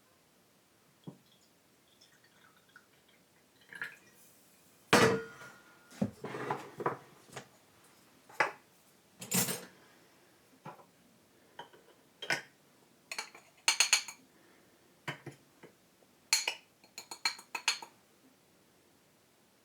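Dishes and cutlery being handled: scattered knocks and clinks with short ringing, and quick runs of rattling clinks about two-thirds of the way through and again near the end.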